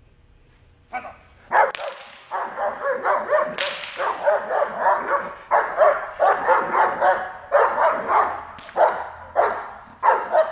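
Dog barking in fast repeated bursts at a protection-training helper, starting about a second in and keeping on without a break.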